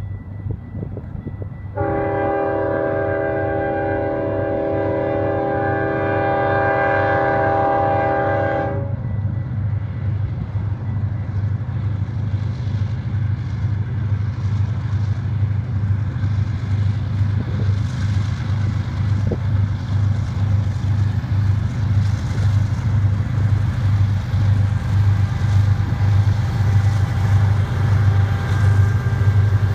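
Diesel freight locomotive's air horn sounds one long chord-like blast of about seven seconds, starting about two seconds in. Under it the Union Pacific lead locomotives' diesel engines rumble with a steady low throb that grows louder as the units come up and pass close by near the end.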